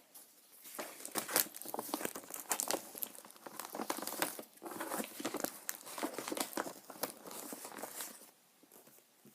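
Packaging crinkling and tearing as a parcel is handled and opened, in irregular rustling bursts. It starts about a second in and stops shortly before the end.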